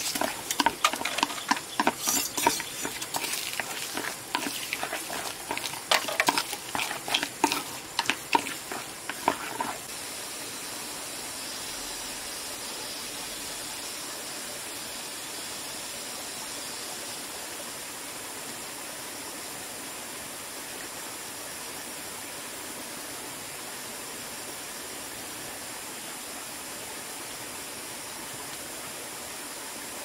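Chopsticks stirring and mixing a wet filling in an aluminium bowl: quick irregular clicking and scraping against the metal. About ten seconds in this stops abruptly and gives way to a steady, even hiss of background noise.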